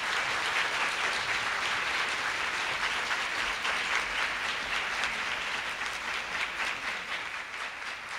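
An audience applauding to welcome a speaker, dense and steady, easing off slightly near the end.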